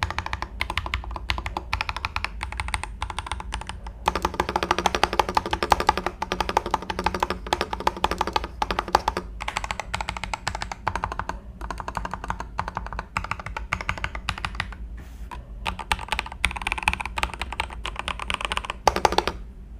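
Typing on a Next Time 75 mechanical keyboard with Kang White V3 switches: a rapid, continuous run of keystroke clicks, busiest from about four to nine seconds in, with brief gaps around fifteen seconds, stopping just before the end.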